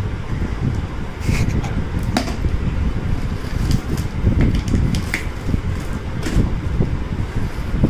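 Kitchen knife slitting the packing tape along the seam of a cardboard box: a few short, sharp scratching cuts, over a steady low rumble.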